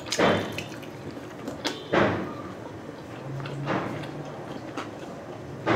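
Close-up eating sounds: biting and chewing grilled betamax (pork blood cubes) off a bamboo skewer, with a few sharp, wet mouth noises.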